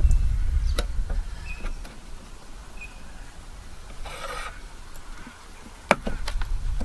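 Handling sounds at a portable gas camp stove: a small metal kettle lifted off the burner, a brief hiss about four seconds in, and clicks and knocks of the kettle and a plastic noodle cup on the wooden board, the sharpest near the end. Low wind rumble on the microphone at the start.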